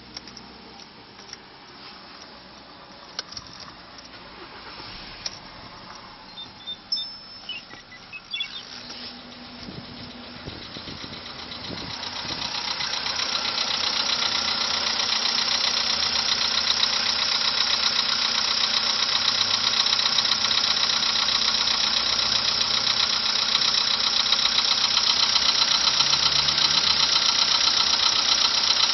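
Volkswagen engine being started after a few clicks and short beeps. It then runs steadily at idle with a fast, even knock: the engine knock that has come back.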